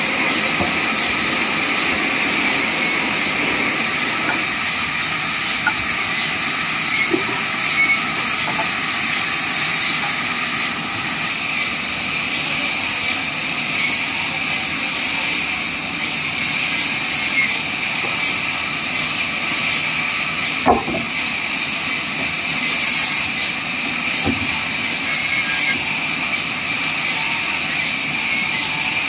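Large vertical band saw running and ripping log wood: a steady loud hiss of the blade cutting, with a thin high whine over it. A single sharp knock about twenty seconds in.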